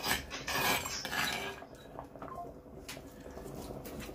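A metal spoon scraping against a cooking pan, rough and noisy for about the first second and a half. Then quieter, with a few faint clinks of utensil on pan.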